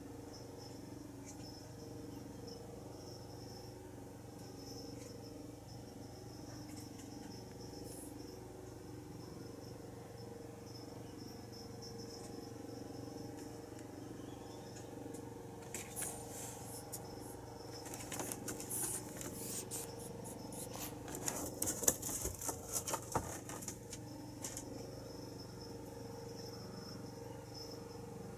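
Scratchy rustling and clicking on cardboard, clustered in the second half, as the mother cat gets up and climbs out of the kittens' cardboard box. Underneath runs a faint steady hum with faint insect chirping.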